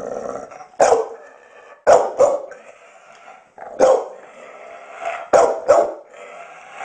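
Pit bull barking about six times in sharp single barks, two of them coming in quick pairs.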